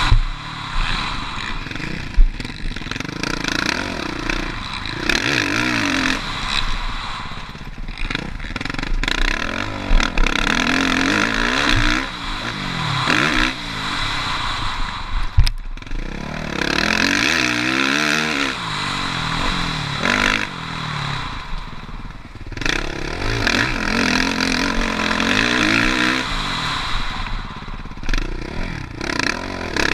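Suzuki RM-Z450 four-stroke single-cylinder motocross bike ridden hard around a dirt track. The engine revs up and drops off over and over as the rider accelerates and shuts off, over a constant rush of wind, with a few sharp knocks, one about halfway through.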